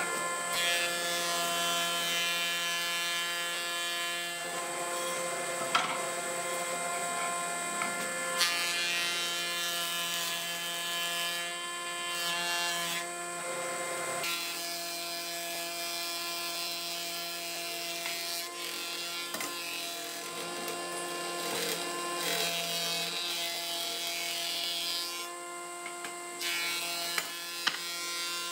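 An electric power tool running on wood, with a steady motor hum under the working noise. The sound changes abruptly several times, as at cuts between clips.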